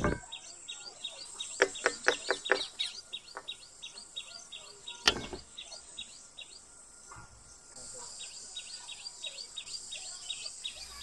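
A small bird chirping over and over, short high chirps evenly repeated several times a second. A few sharp knocks and clinks of a steel bowl and utensils, the loudest about five seconds in.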